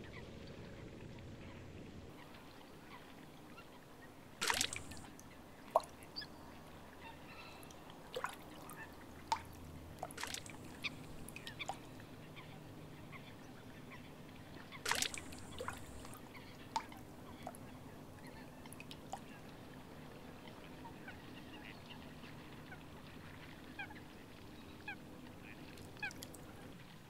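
Marsh ambience with many short, scattered bird calls. Two louder, sharp calls stand out about four and a half and fifteen seconds in.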